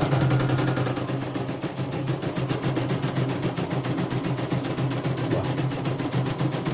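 CNY computerized embroidery machine stitching, its needle clattering in a rapid, even rhythm over a steady motor hum, during a test run while the upper thread tension is being set.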